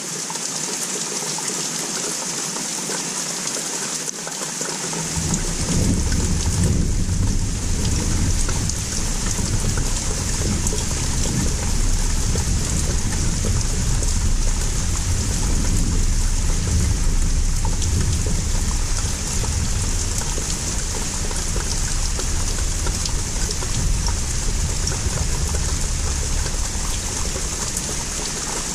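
Steady hiss of rain falling, with a low rumble of distant thunder that comes in about five seconds in and rolls on, swelling and easing, for the rest of the time.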